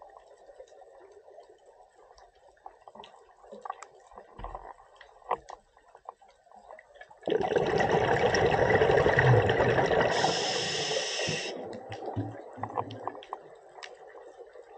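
A scuba diver's exhaled bubbles rushing out of the regulator: one loud burst starting about seven seconds in and lasting about four seconds. Before and after it, faint underwater crackling and clicks.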